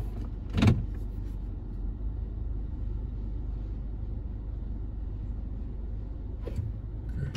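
Car engine idling with a steady low rumble, heard from inside the cabin. A single sharp knock sounds about a second in, and a fainter click near the end.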